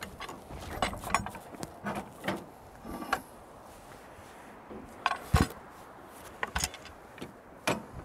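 Irregular metal clanks and knocks from the EZ Boardwalk sawmill's steel log clamp and dogs as the clamp is worked loose to reposition the log, some with a short metallic ring, and a heavier thump about five seconds in.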